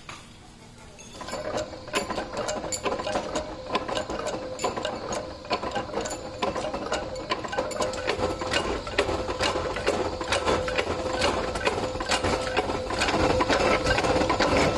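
Heavy mechanical metal-forming press running: a fast, even clatter of clicks over a steady mechanical hum, starting about a second in and getting somewhat louder near the end.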